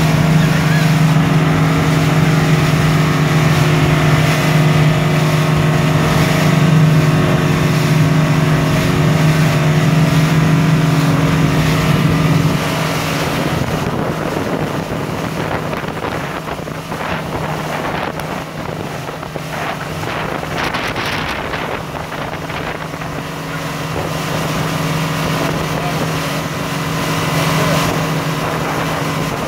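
Motorboat engine running steadily under way while towing, with wind on the microphone and the rush of the wake. About twelve seconds in the engine drone drops and the wind and water noise takes over.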